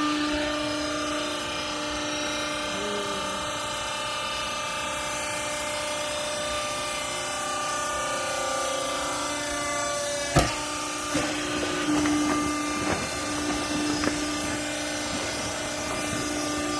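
Clothes scrap baler running, a steady machine hum from its motor and hydraulic pump. About ten seconds in there is one sharp bang, followed by a few lighter knocks over the next few seconds.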